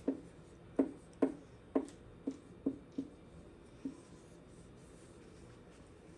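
A dry-erase marker writing numbers on a whiteboard: about eight short, quick strokes over the first four seconds.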